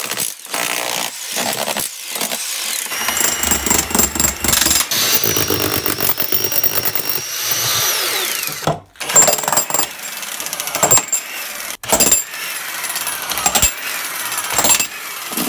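Corded Makita electric demolition hammer chiselling into brick and mortar, a fast continuous hammering. It stops briefly about nine seconds in, then starts again.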